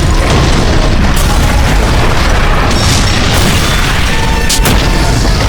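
Loud, continuous booming explosion sound effects piled up over music, with a few sharp cracks near the end.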